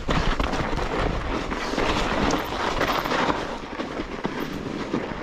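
Mountain bike ridden down a snow-covered trail: a steady rattling rush of the tyres through snow and the bike shaking over the ground.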